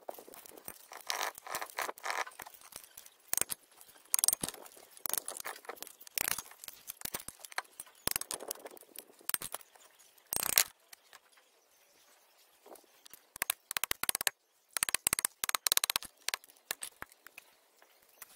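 Metal parts of a van's front wheel hub and brake disc being handled and taken apart: scattered clinks, knocks and scrapes, with quick runs of clicks about three-quarters of the way through.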